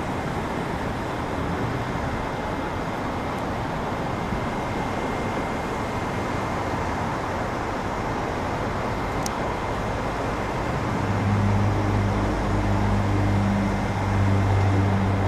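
Steady rumble and hiss of a Boeing 757-200 jet airliner on final approach, with a low steady hum joining about eleven seconds in and growing louder toward the end.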